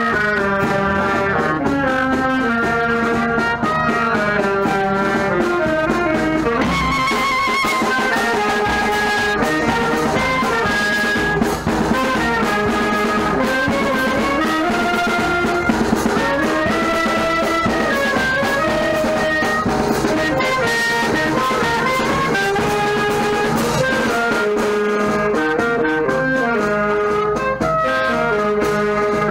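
Brass band music: brass instruments playing a flowing melody in several parts without a break.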